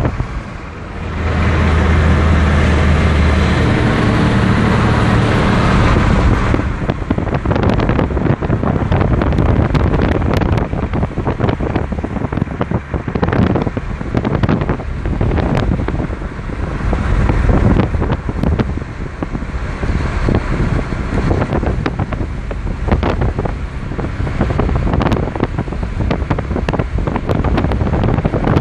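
Car driving along a road, with tyre and engine noise and wind buffeting the microphone in gusts. A steady low hum is plain for the first six seconds, after which the wind gusts dominate.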